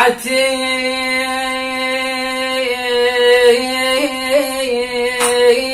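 A man singing one long held note on the word 'wda'ati', in Iraqi sung-poetry style, with small ornamental turns partway through.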